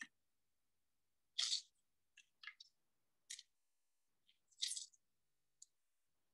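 Half a lime being squeezed and twisted on a fork to juice it: several short, scratchy hisses, the loudest about a second and a half in.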